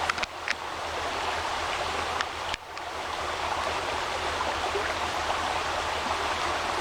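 Small mountain creek rushing steadily over rocks, with a few faint clicks in the first second.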